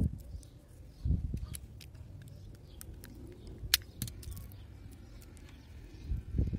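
Faint clicks and crinkles of fingers working the foil shield and braid of a coaxial cable end, with a sharp click about midway. Low rumbling thumps come at the start, about a second in and near the end.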